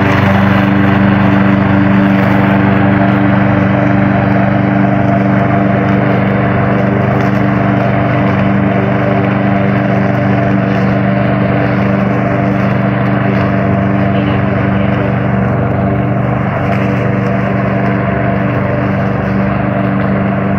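Evatech robotic ride-free mower's small engine running steadily at a constant speed, its even engine note slowly getting a little quieter as the mower drives away.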